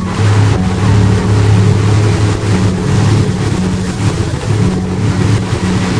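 Open tour boat speeding along a river under engine power: the engine drones under a loud, steady rush of wind and water.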